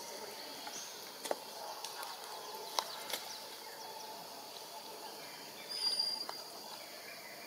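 Forest ambience: a steady high insect hum, a few sharp clicks, and a short high bird whistle about six seconds in.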